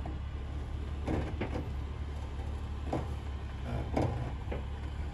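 Hummer H3 crawling down a rock ledge, its engine a low steady rumble, with several short creaks and knocks from the truck's suspension and tyres working over the rock.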